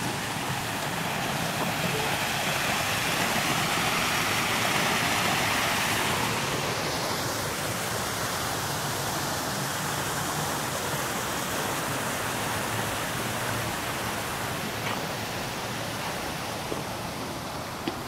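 Steady rushing outdoor noise, even and hiss-like, with a couple of faint ticks near the end.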